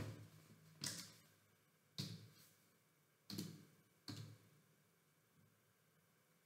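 Five short, sharp clicks or taps, spaced irregularly about a second apart, each fading quickly into near silence.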